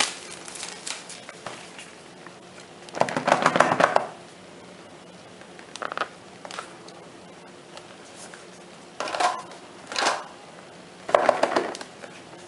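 Hands handling a cardboard smartphone box as it is opened: several short bursts of cardboard rubbing, scraping and tapping, the longest and loudest about three seconds in, with short quiet gaps between.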